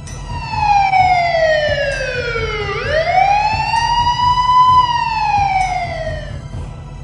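Police siren wailing: its pitch slides down for about three seconds, swings back up, then falls away again, over a low throbbing rumble.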